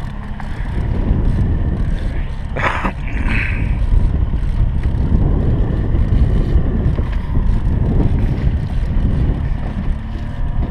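Steady low rumble of wind buffeting the camera microphone over a trolling boat's running motor, with a brief sharper sound about two and a half seconds in.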